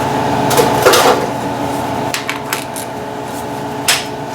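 Metal tools clinking and knocking: a few sharp clinks about a second in, a quick run of lighter ones a little after two seconds, and another near the end, over a steady machine hum.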